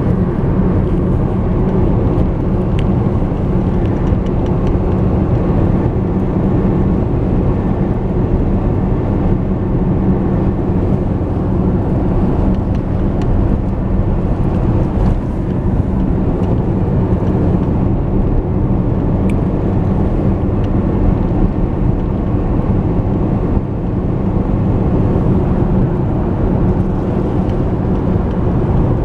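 A car driving along at a steady pace: continuous engine and road noise with a steady low hum.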